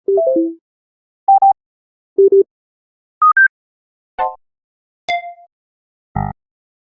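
A run of short iPhone notification and alert sound effects, one after another with silence between: a quick falling three-note chime, pairs of short beeps at different pitches, a click, a ringing ding, and a short buzz near the end.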